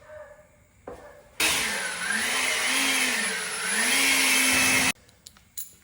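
A small electric motor runs for about three and a half seconds, starting and stopping abruptly, its pitch dipping and rising twice as the speed varies.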